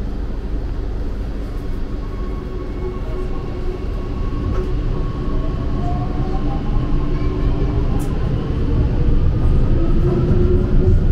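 Metro train running: a steady low rumble with a faint motor whine that rises slightly in pitch, the whole sound growing louder over the second half.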